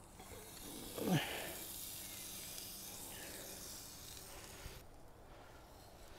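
Raw whole chicken sizzling as it is set onto the hot chicken stand in a Cobb grill: a steady hiss that cuts off suddenly near the end. About a second in, a short sound slides down in pitch.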